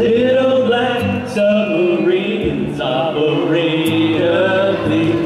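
Live rock band playing: a male voice singing over electric guitar, bass guitar and a drum kit, with cymbal hits.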